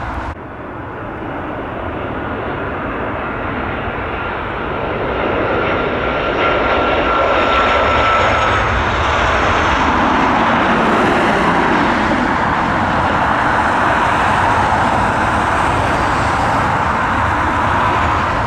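Jet airliner engines passing close, a loud rushing noise that builds over the first several seconds and then holds steady. A thin high whine sounds through it and fades out about nine seconds in.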